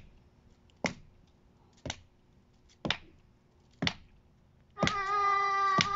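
Hands clapping a slow, steady beat, about one clap a second. From about five seconds in, a child's voice joins and holds one long high note over the claps.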